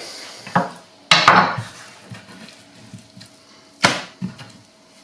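Large kitchen knife knocking against a wooden chopping board while raw chicken breast is diced: a few irregular sharp knocks, two of them loud.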